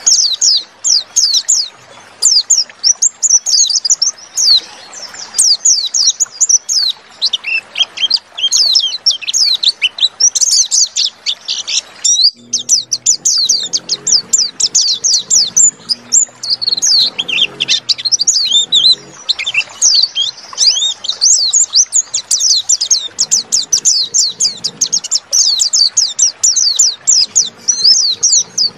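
White-eye (pleci) singing a fast, unbroken high-pitched twittering song of rapid chirps, which breaks off briefly about twelve seconds in.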